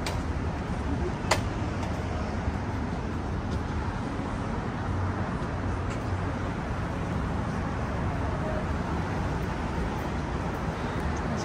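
Steady city street traffic: a constant rumble and wash of passing cars and engines. A single sharp click sounds just over a second in.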